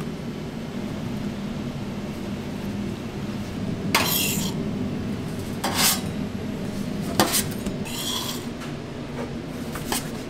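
Stainless steel pan and metal spatula clanking and scraping as toasted burger buns are moved off a flat-top griddle into the pan: about five short scrapes and knocks starting about four seconds in, over a steady low kitchen hum.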